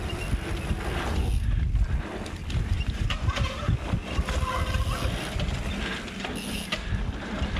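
Mountain bike ridden fast down a dirt trail: a steady rush of wind buffeting the microphone over tyres rolling on dirt, with scattered knocks and rattles from the bike.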